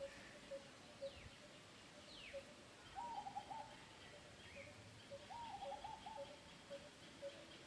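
Faint bird calls: a soft note repeated about twice a second, with two short warbling phrases and a couple of quick falling whistles over a faint steady high hum.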